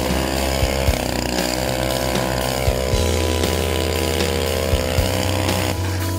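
Gas-powered ice auger's two-stroke engine running and revving as it drills through the ice, its pitch rising and falling, with background music underneath.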